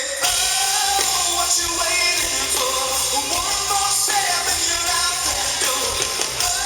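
Live band playing a rock song, with a lead vocal singing over the full band.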